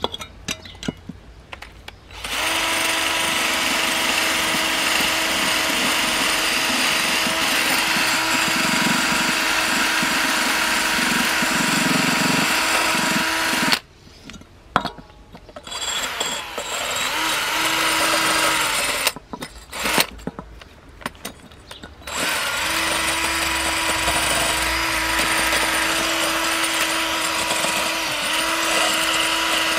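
Cordless drill spinning a small wire wheel brush against the metal pipe stubs of a car coolant fitting, scouring off calcium deposits. The drill starts about two seconds in and runs steadily for about eleven seconds, stops, gives a few short bursts, then runs steadily again until near the end.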